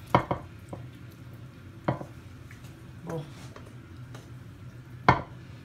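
A handful of short sharp taps and knocks of food being handled on a ceramic plate, the loudest just after the start and about five seconds in, over a low steady hum.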